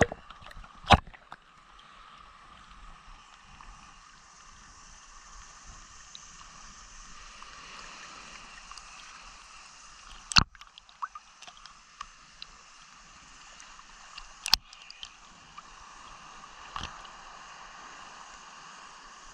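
Small sea waves lapping and sloshing around a camera floating at the water surface, heard as a steady watery hiss. A few sharp clicks break through, the loudest about ten and fourteen seconds in.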